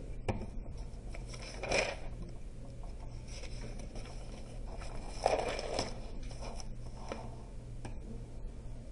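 Paper rustling and scraping as a notebook page is handled and turned, louder about two seconds in and again around five to six seconds in, over a low steady hum.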